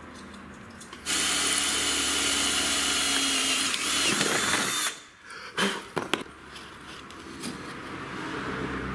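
Cordless drill boring a hole through a metal bracket, running steadily for about four seconds from about a second in, then stopping. A few sharp clicks follow.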